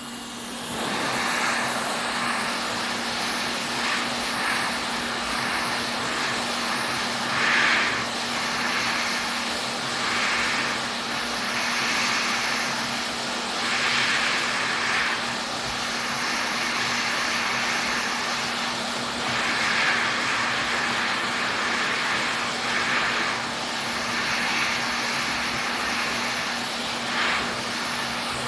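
Electronics rework equipment running steadily: an airy whoosh over a constant low hum, swelling a little every few seconds, while a PS5's damaged HDMI port is being desoldered from the motherboard.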